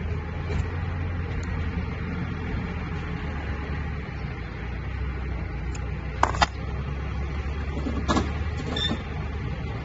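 Polishing machine running with a steady low hum, with a few sharp metallic clinks: two close together about six seconds in and another about two seconds later.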